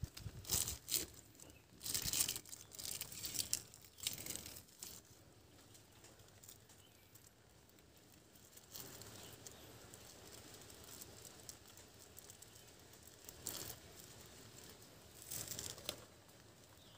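Thin clear plastic grafting wrap crinkling and tearing as it is handled close by, in several short bursts in the first few seconds and twice more near the end, with quieter stretches between.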